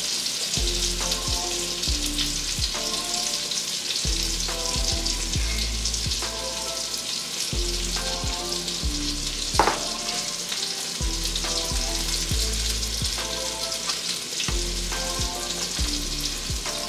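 Olive oil and butter sizzling steadily in a hot skillet, with no food in the pan yet. Background music with changing bass notes plays under it, and one brief sharp sound comes about halfway through.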